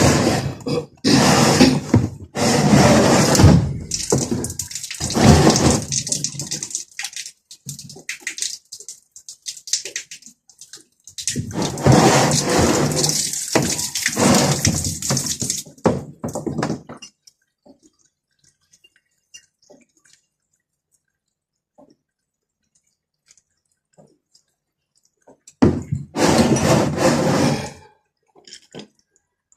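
Water pouring and splashing in three long spells, with faint drips and small clicks in the quiet gaps between them.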